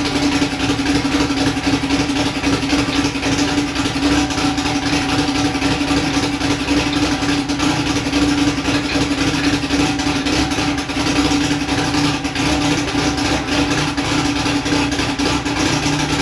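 Turbocharged Mitsubishi 4G63 four-cylinder engine running at a steady speed, with a constant hum that does not change.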